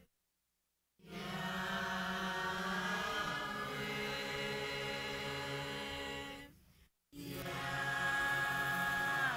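Choir singing long held chords. The sound drops out completely for about a second at the start and again briefly about seven seconds in.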